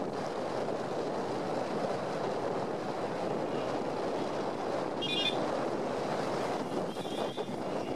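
Steady wash of sea surf and wind on the microphone, with a short high-pitched toot about five seconds in and another near the end.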